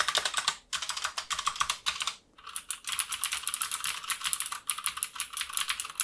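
Fast typing on an XPG Summoner mechanical keyboard with Cherry MX Blue switches: a dense run of loud, clicky keystrokes, with two short pauses, one under a second in and one just after two seconds.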